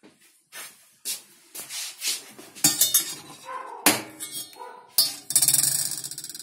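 Stainless steel saucepan and mesh strainer clinking and knocking against each other and the hob as they are handled and set down: sharp clanks at about three, four and five seconds in, then a quick metallic rattle near the end.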